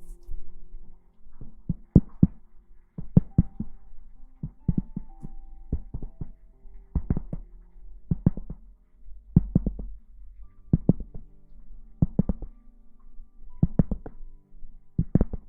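Soft thumps in small clusters, repeating about every second and a quarter, over faint held tones.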